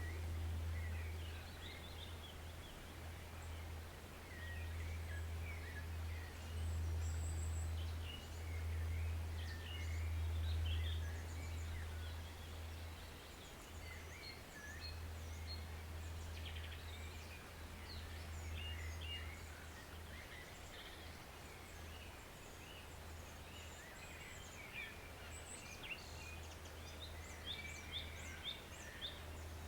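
Small woodland birds chirping and singing in many short, high calls, busier near the end, over the steady wash of a forest stream and a low rumble.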